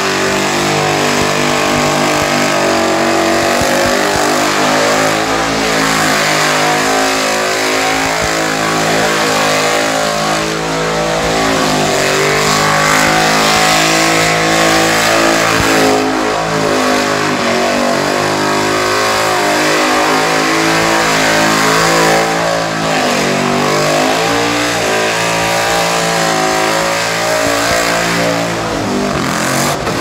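War Bird burnout car's engine held at high revs while the rear tyres spin and smoke, the pitch wavering up and down continually. Near the end the revs fall away.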